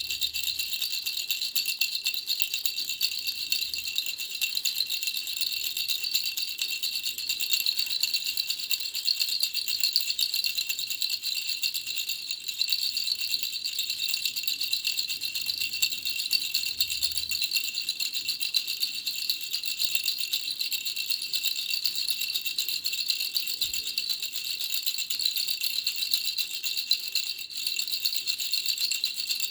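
Three-ball baby rattle shaken steadily and without pause: a fast, dense, high clatter with a bright ringing edge.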